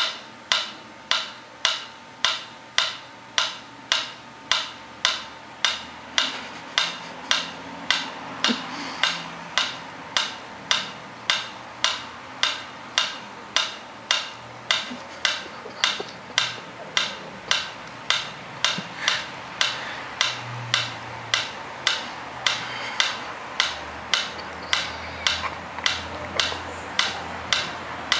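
Steady, even ticking, about two sharp ticks a second.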